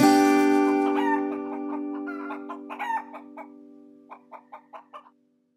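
The last chord of the outro music fades away, and over its tail a hen clucks: a few scattered clucks about two to three seconds in, then a quick run of five short clucks about four seconds in.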